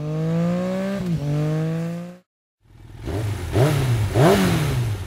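Engine accelerating, its pitch climbing, with a quick drop about a second in like a gear change, then cut off abruptly. After a short silence, the engine is revved in two quick blips.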